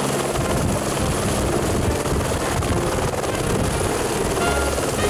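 Tour helicopter running steadily, a dense, loud rotor and engine noise.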